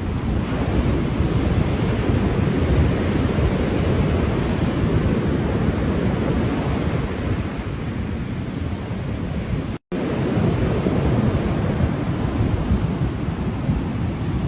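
Ocean surf with wind on the microphone: a steady, deep rushing noise. It cuts out for a split second about ten seconds in.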